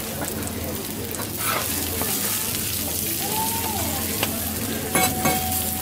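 Okonomiyaki sizzling steadily on a hot flat iron griddle, with a metal spatula scraping and clicking against the griddle a few times as a pancake is slid under and lifted.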